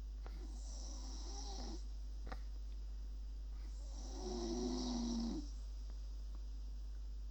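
A person asleep snoring, heard over a Skype call: two snores, each a little over a second long with a hiss on top, about three seconds apart, over a steady low hum.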